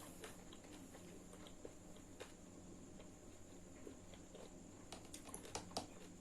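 Faint chewing and mouth sounds of a person eating, with scattered small clicks and a few louder ones near the end.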